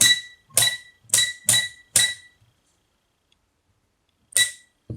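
Tilswall FY8233X multimeter's rotary range switch clicking from one position to the next, the meter giving a short high beep with each click: five quick clicks in the first two seconds, then one more after a pause. The switch is very clicky.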